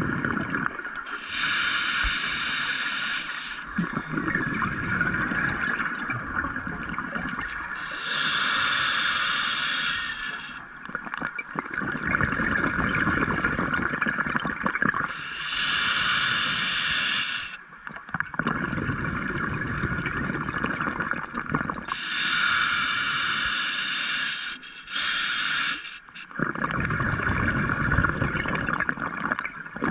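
Scuba diver breathing through a regulator underwater: exhaled bubbles rush and gurgle out in bursts of two to three seconds, about every seven seconds, over a steady hiss.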